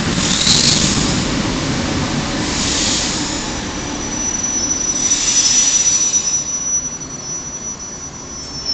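ED4M electric commuter train rolling slowly along the platform: a low rumble with repeated high-pitched squeals from its wheels and brakes. About halfway through, a thin steady high whine sets in, and the sound fades as the train slows.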